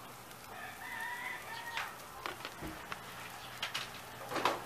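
A bird call held for about a second and a half. It is followed by a few sharp clicks and knocks from a plastic oil jug being handled over a griddle, the loudest near the end.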